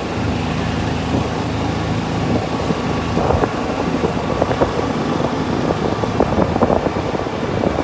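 Engine of a small vehicle running steadily while it drives along a street, heard from on board.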